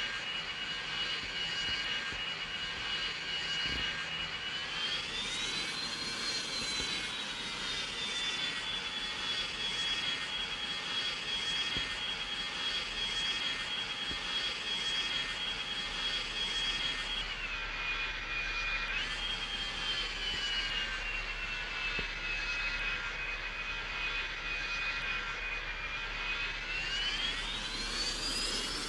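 Boeing MD-90's IAE V2500 turbofan engines whining over a steady rush of airflow, with the thrust being changed on the landing approach. The whine rises about five seconds in, dips suddenly and recovers near the middle, sinks slowly, then climbs steeply near the end.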